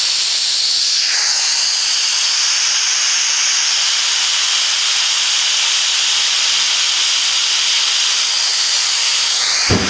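CO2 venting through the exhaust valve of a CO2 fill station, purging a small on-off valve CO2 tank: one loud, steady, high hiss that cuts off just as it ends. This is the purge stage that chills the tank before filling.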